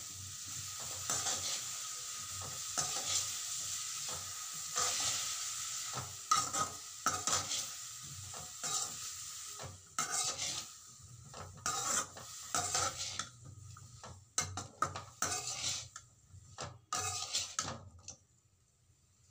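Cauliflower florets frying in a pan, sizzling while a slotted spatula stirs and scrapes them in irregular strokes. The sizzle is steady through the first half, then fades, leaving separate scraping strokes that stop a little before the end.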